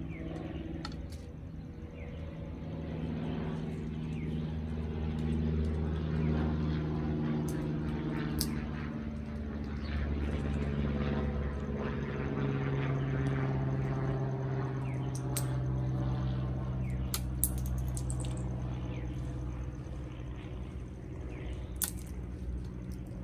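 A steady low motor drone whose tones drift slowly in pitch, with several sharp clicks over it, typical of Amazon parrots cracking pistachio shells in their beaks.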